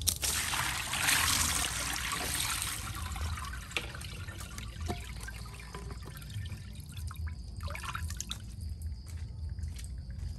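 Water pouring and splashing for about the first three seconds, then quieter trickling and drips.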